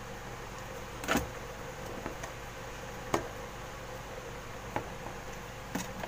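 A screwdriver working a terminal screw on a plastic fire alarm call point base: about five small clicks and taps, the sharpest about a second and three seconds in, over a steady low background hum.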